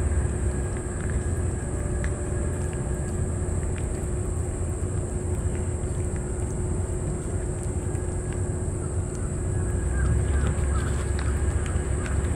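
A cat eating wet food from a metal bowl, with faint scattered clicks and smacks of chewing. Beneath it runs a steady low rumble, the loudest sound, along with a steady high hum.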